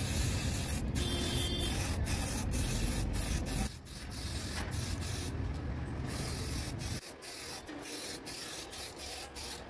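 Aerosol spray-paint can hissing as black paint is sprayed onto a steel truck wheel rim, in a run of short bursts broken by brief gaps. It gets quieter about four seconds in and again about seven seconds in.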